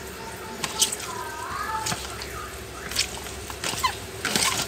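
Snail shells being scrubbed by hand with halved limes in a plastic basin: wet squelching with sharp clicks of the shells knocking together.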